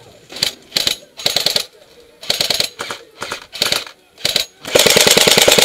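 Airsoft rifles firing: several short bursts, then one long full-auto burst of rapid clacks starting near the end.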